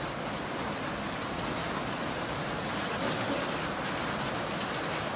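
Steady rain falling: an even hiss with faint scattered drip ticks.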